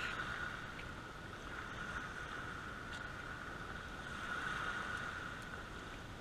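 Small waves washing in on a sandy shore, a steady hiss with some wind.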